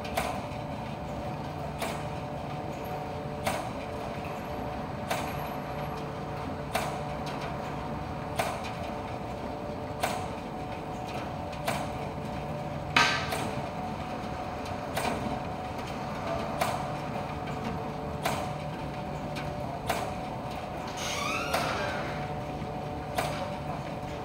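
ADC commercial tumble dryer running with a steady hum, with a sharp knock about every second and a half as it turns. A short rising squeal comes near the end.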